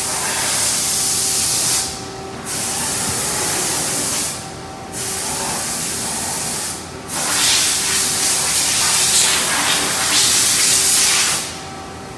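Coolant spraying inside a CNC milling machine's enclosure during a cut: a loud hiss that comes in four spells with short breaks, the longest near the end, over a faint steady machine whine.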